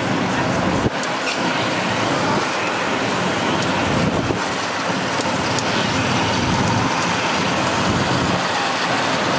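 Steady city street traffic and road noise heard from a moving open-sided electric sightseeing cart, with motorbikes and cars running alongside.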